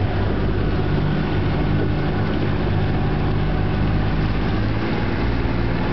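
Small boat's engine running steadily at low speed, a low, even engine note with wash noise over it.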